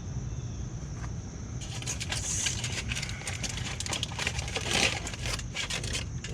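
Small clicks, clinks and scrapes of tools and parts being handled, loudest about five seconds in, over a steady low hum.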